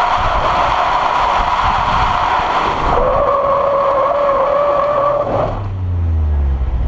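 Tyres of a Nissan 200SX S13 squealing steadily as the car slides in a drift, the squeal shifting pitch about three seconds in and cutting off suddenly about five and a half seconds in. The engine is then heard running low.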